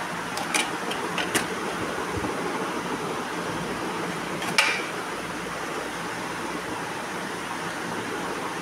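Steady hiss of room noise, like a fan or air conditioner running, with a few light clicks: two close together about a second in and a sharper one about four and a half seconds in.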